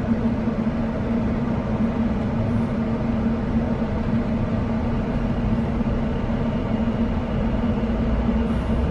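Interior running noise of a Class 720 electric multiple unit: a steady low rumble with a constant hum, holding an even speed.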